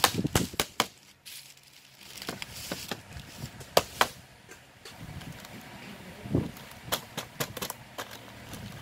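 Hammer striking nails into the lid of a wooden fruit crate, closing it up: sharp single taps, a few at the start, two about four seconds in, and a quicker run of taps near the end.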